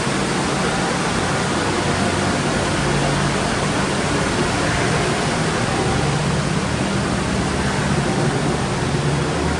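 Steady rushing noise with a low hum underneath, unbroken throughout.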